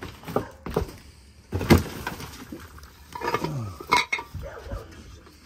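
Debris being shifted by hand: a string of separate clinks and knocks of hard junk, the loudest about two seconds in, as a figurine is pulled out of the rubble.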